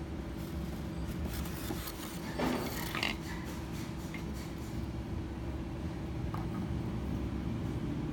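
Steady low background rumble with a constant hum, and a few brief soft rustles about two and a half to three seconds in.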